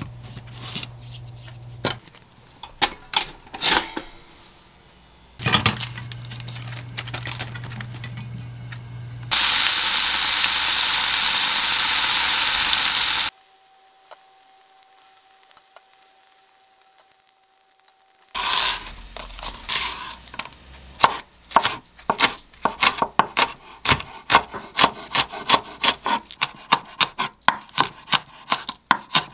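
Bacon sizzling in a frying pan for a few seconds. Later, a chef's knife chops green onion on a wooden cutting board in quick, even strokes, about three a second.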